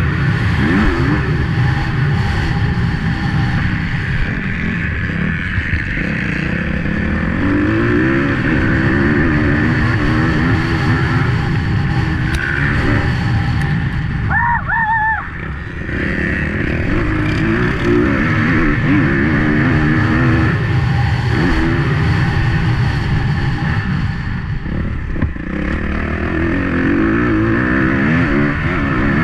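250 cc motocross bike engine heard close up from an onboard camera, revving hard and dropping back over and over as the throttle is worked through the lap. The engine note briefly eases off about halfway through.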